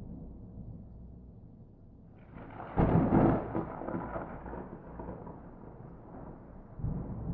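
Thunder: a low rumble, then a sharp crack about two seconds in that breaks into a loud boom and a long rolling rumble fading away, with a smaller boom near the end.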